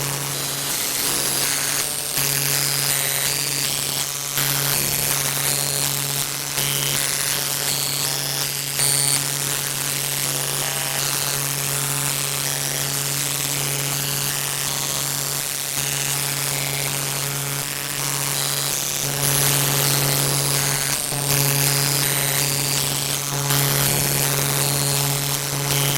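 A steady low buzzing hum with short high-pitched tones flickering on and off over it, dropping out briefly a few times.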